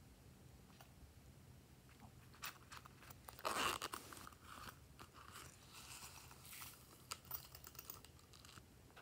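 Close handling of a small plastic container: a short clatter and rustle about three and a half seconds in as it is opened, then light scattered clicks and a soft crunchy rattle as sprinkles are poured out onto slime.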